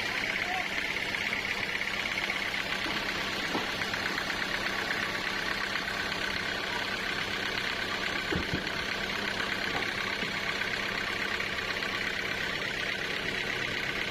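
Sawmill machinery running steadily: a continuous mechanical hiss-like noise with a low steady hum and a faint knock or two about eight seconds in.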